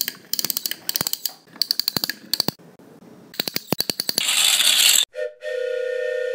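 Quick runs of sharp metallic clicks and rattles, then a loud burst of hiss about four seconds in, then a steady held whistle-like tone from about five seconds in.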